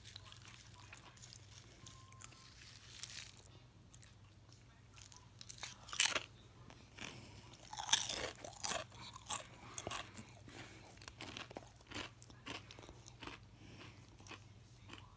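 A person biting into and chewing crisp Quest protein chips right at the microphone. There is a sharp loud crunch about six seconds in, a run of crunching bites from about eight to ten seconds, then softer chewing.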